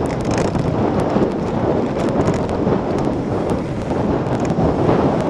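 Wind buffeting the microphone of a handlebar-mounted camera on a mountain bike descending at over 20 mph, over a steady rumble of knobbly tyres on a rough grass-and-stone track, with scattered clicks and rattles from the bike.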